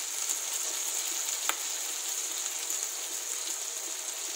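Green chillies and garlic sizzling steadily in hot oil in a pan, with one sharp pop about a second and a half in.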